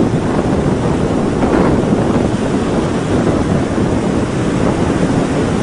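Wind buffeting an outdoor camera microphone: a steady rushing noise with no tone in it.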